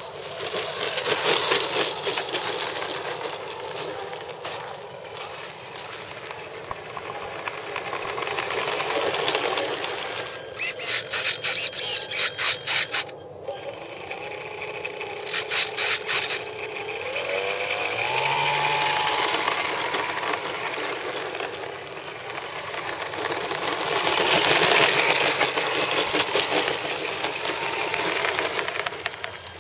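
Electric motor and propeller of a Parkzone F4U Corsair RC plane, a high buzzing whine that swells loud and fades several times as the plane takes off and flies around. There are short stretches of rapid pulsing partway through.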